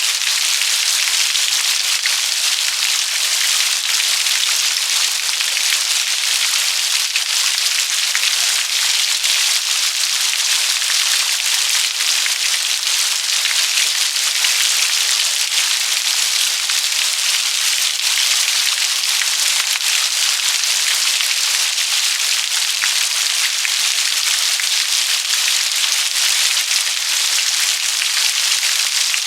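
Steady rain falling: a dense, even patter of countless raindrops, bright and without any low rumble, unchanging throughout.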